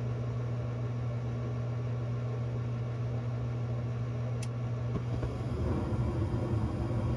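Steady low mechanical hum of a running motor, with one low tone held throughout. About five seconds in there is a click, and the hum turns rougher and slightly louder.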